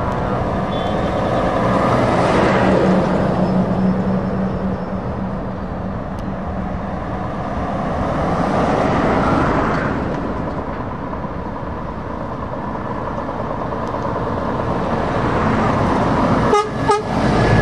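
Convoy of heavy trucks, a Volvo FH and a Scania S-series tractor unit among them, driving past with diesel engine and tyre noise that swells as each one passes. A truck horn sounds in the first few seconds, and a few sharp knocks come near the end.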